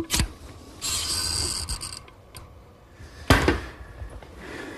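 Caulking gun dispensing a bead of marine adhesive: sharp ratcheting clicks from the gun's trigger, with a hiss of about a second as the adhesive squeezes out and a louder click a little past three seconds in.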